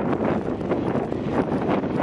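Wind buffeting the microphone, a loud uneven rumbling hiss.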